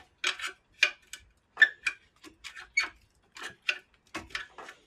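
About a dozen sharp, irregular metallic clicks and taps of a hand tool working at a Fiat Cinquecento 900's clutch pressure plate, as the plate is worked loose from the flywheel.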